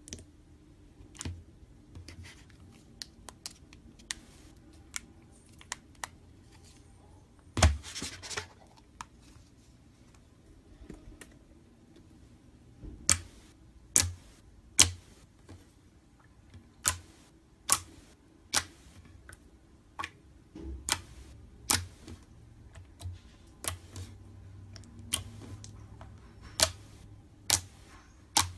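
Slime being squeezed and worked by hand, giving sharp, irregular clicks and pops, with a short crackly burst about eight seconds in.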